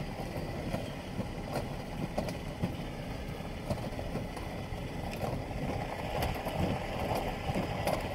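Minivan's engine and tyres rolling slowly on asphalt, a steady low rumble heard from inside the cabin, with a few faint clicks.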